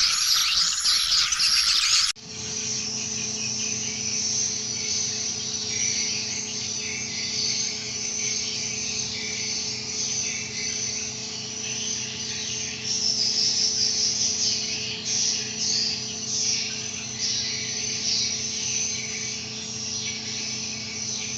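A dense chorus of quick, high-pitched swiftlet chirps over a steady low machine hum. About two seconds in, an abrupt cut ends an even denser, higher chirping.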